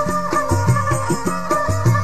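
Instrumental passage of a South Asian folk song: a drum beat repeating about twice a second under a sustained melody, with no singing.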